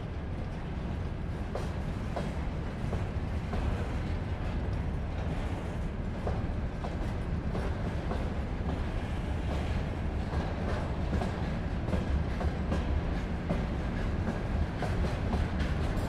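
Freight train wagons rolling past, with a steady low rumble and irregular clanks and knocks from the wagons. It grows slightly louder toward the end.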